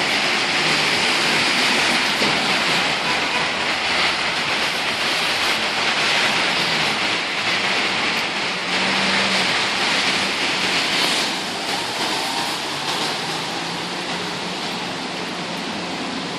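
Heavy rain pouring down steadily. It eases slightly about eleven seconds in.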